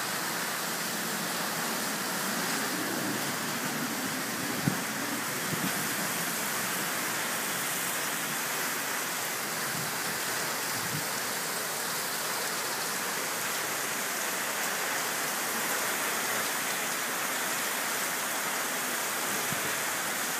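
Heavy rain pouring down steadily, a dense even hiss, with one sharp tap about five seconds in.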